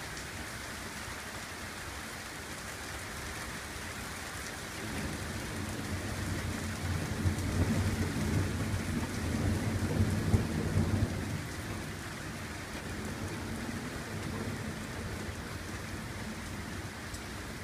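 Steady rain falling with a constant hiss, and a long, deep rumble of thunder that builds a few seconds in, peaks, and dies away past the middle.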